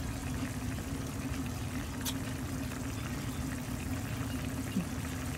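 Chicken adobo bubbling in its sauce in a pan on the stove as the liquid cooks down, over a steady low hum, with a single click about two seconds in.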